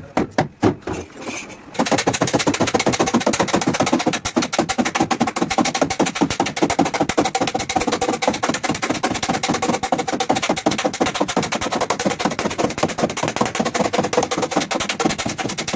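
Rapid repeated hammering on car body sheet metal, the panel ringing under the blows: a few separate strikes, then about a second and a half in a fast continuous rattle of blows that stops sharply near the end.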